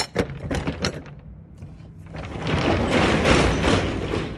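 Roll-up rear door of a Morgan box truck: a few metal clacks as the latch is worked in the first second, then the door rattling loudly for about two seconds as it rolls up.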